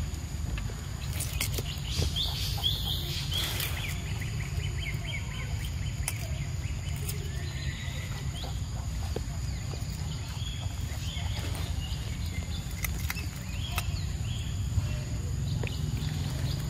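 Outdoor ambience with a steady low rumble, a quick run of high chirps from a small animal about two to four seconds in, fainter chirps later, and a few scattered sharp clicks.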